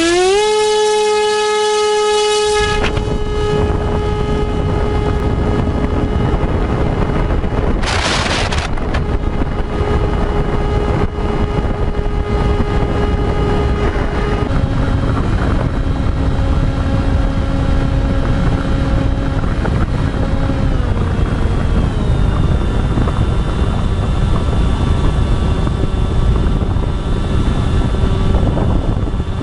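Electric motor of an FPV model aircraft whining at a steady pitch, with a loud rush of wind over it from about three seconds in. The motor pitch shifts a few times, and there is a short hiss about eight seconds in.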